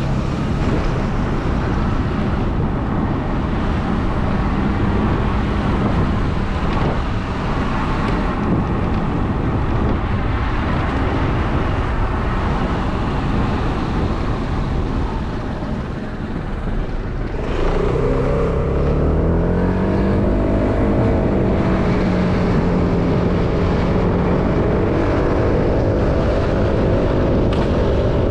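Vehicle engine running while moving, with wind noise on the microphone. About two-thirds of the way through, the engine note rises in pitch and gets louder as it speeds up, then holds steady.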